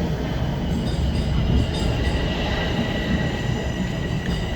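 Toronto subway train (TTC Line 1) running: a steady low rumble of the cars, with a high wheel squeal that comes in about halfway through and holds.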